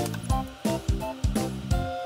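Background music: a light tune of short pitched notes over a steady beat of about three beats a second.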